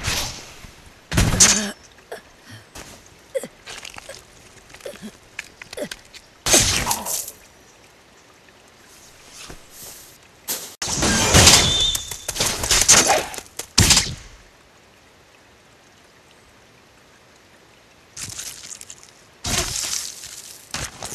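Sword-fight sound effects: sudden slashes, whooshes and impacts in short bursts several seconds apart, with a longer run of clashing about halfway through and quiet stretches between.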